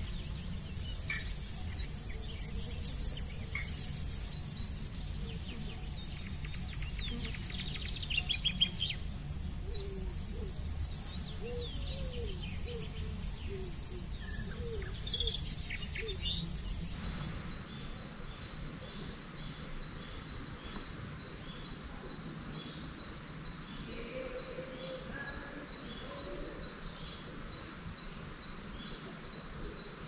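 Rainforest ambience. For about the first half, varied birds chirp and call over a low rumble. Then the sound changes to a steady, pulsing high insect drone with a second steady whine above it.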